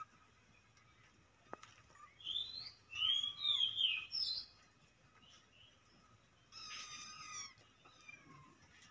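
Young kampung (village) kitten mewing: a run of high, wavering mews from about two seconds in, then one more mew about a second long near the seven-second mark.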